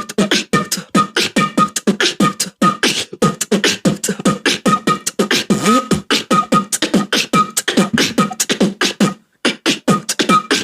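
Vocal beatboxing with a fast, dense drum-like pattern of kicks and snares, with short steady whistle-like notes woven in to imitate a flute. The pattern breaks off briefly about nine seconds in, then resumes.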